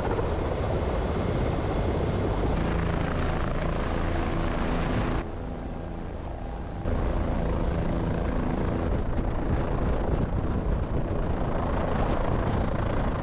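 Helicopter running, a steady wash of rotor and turbine noise with some steady tones through it. The sound shifts abruptly several times, dropping quieter for a couple of seconds about five seconds in.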